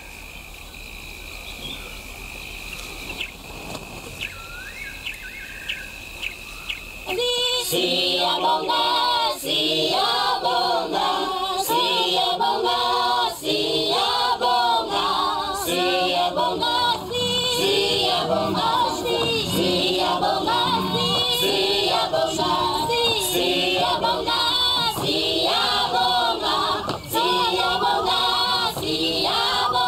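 Choral singing in many voices starts about seven seconds in and carries on. Before it comes a steady high insect trill with a few short chirps.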